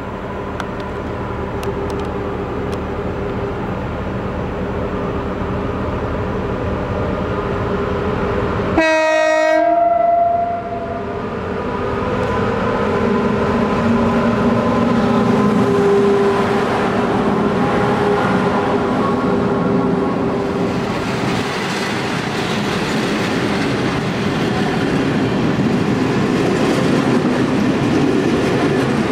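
Renfe class 269 electric locomotive approaching and giving one long horn blast of about a second and a half, about nine seconds in, as a greeting from the driver. The locomotive and its container wagons then run past, with steady wheel-on-rail clatter that grows louder.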